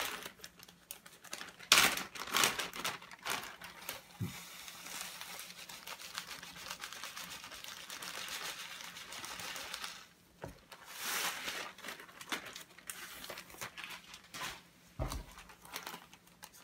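Plastic zip-lock bags crinkling as they are handled, in sharp crackly bursts. Through the middle stretch there is a soft, steady rustle as dry ingredients are tipped from a bag into a plastic tub.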